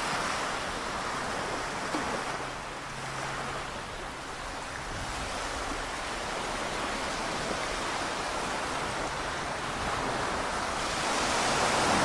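Small waves washing onto the beach, a steady surf hiss that swells louder near the end as a wave comes in.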